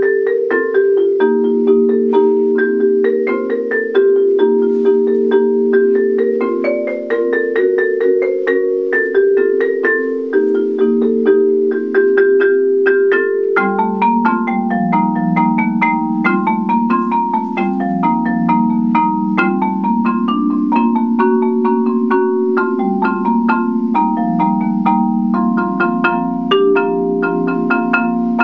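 Solo concert marimba played with four mallets in a steady stream of ringing notes: rolling low chords under a higher melody, with the bass moving lower about halfway through.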